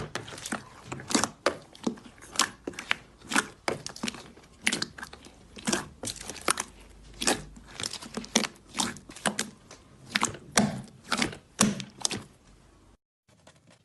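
Slime being squeezed and poked by hand, making sharp sticky pops and crackles, two or three a second, in an uneven rhythm. The sound cuts off near the end.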